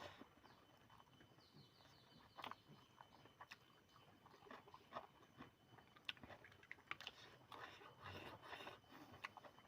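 Faint chewing and eating: a person chewing chicken curry, with scattered small crunching clicks that grow busier in the second half.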